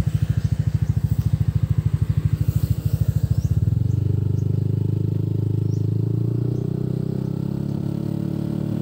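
Yamaha Aerox scooter's single-cylinder engine breathing through a Krace aftermarket racing exhaust, idling with an even pulsing beat. About three and a half seconds in, it pulls away and the note smooths into a steady drone as the scooter rides off.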